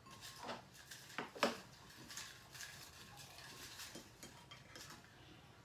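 Faint handling sounds at a table: a hand stirring folded paper slips in a bowl, and light clinks of a spoon and a glass baby-food jar. There are a few sharper taps in the first second and a half, then a quieter rustling.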